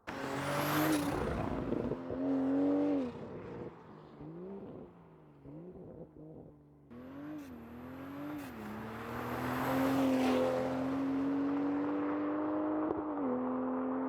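BMW M240i's B58 turbocharged 3.0-litre straight-six with a valved aftermarket cat-back sport exhaust on stock downpipes, driven past under throttle in two runs. The first is loudest right at the start, with the engine pitch rising and falling through shifts. The second starts about seven seconds in and builds to a loud pass near the middle, then holds a steady drone with a brief dip near the end.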